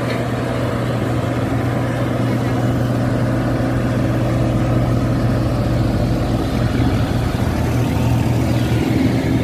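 Engine of ground-support equipment beside a parked C-130 Hercules (ground power unit or tow tractor) idling steadily, a low even hum with no change in speed.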